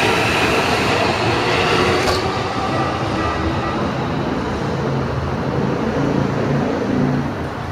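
Red Keikyu Main Line electric train running past over the level crossing and moving off, with wheel and motor noise. The higher tones die away about two seconds in, leaving a lower rumble that eases near the end.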